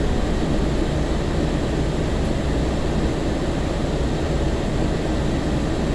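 Steady rumble and hiss of a 2002 Breda LRV3 light rail car heard from inside the passenger cabin, with no distinct events.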